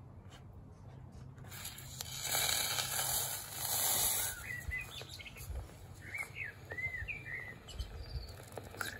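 Hot plaster investment mould holding a freshly poured aluminium casting quenched in a bucket of water: a loud hiss of boiling water and steam starts about a second and a half in, peaks, then dies down. A bird chirps several times in the background after the hiss fades.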